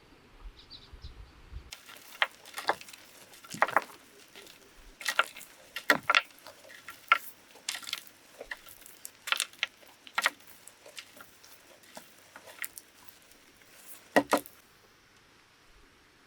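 Irregular sharp knocks and clacks of hard material being struck or handled. They start about two seconds in and stop shortly before the end.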